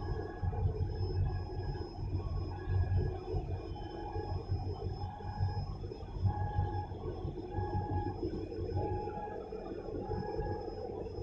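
Low, pulsing engine drone from a large container ship passing close by. A faint short chirp repeats about once a second over it.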